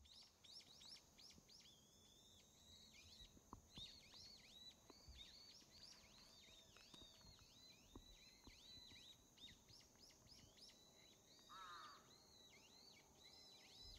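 Faint birdsong: quick, repeated high chirps, with one short lower call near the end.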